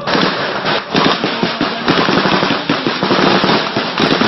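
Dense automatic gunfire that cuts in suddenly: many rapid, overlapping rifle shots in close succession.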